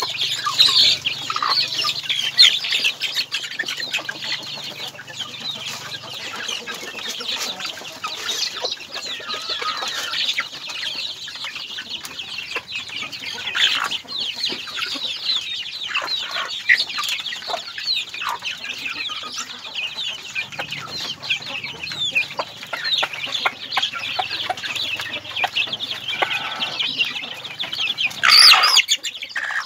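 A flock of native chickens feeding: chicks peeping in a constant high chatter, with hens clucking. A louder outburst comes near the end.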